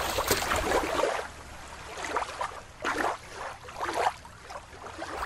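Water sloshing and splashing in short irregular bursts, over a low rumble in the first second.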